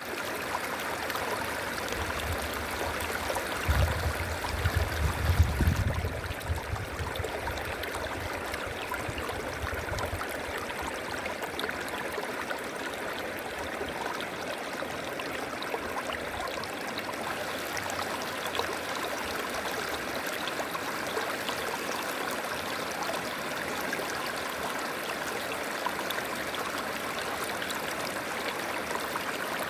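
River water flowing steadily in an even rush. A low rumble rises under it a couple of seconds in and fades out by about ten seconds.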